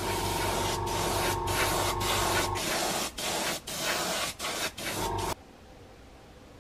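Paint being sprayed onto a small plastic model part: a steady hiss for about two and a half seconds with a low steady tone under it, then several short bursts, stopping sharply about five seconds in.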